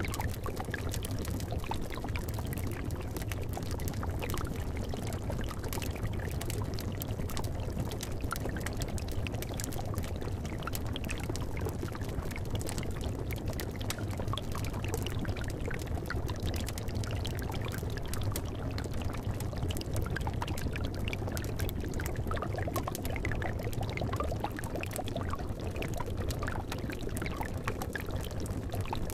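A cauldron of liquid bubbling steadily, layered with the small pops and crackles of a wood fire beneath it and a low steady rumble.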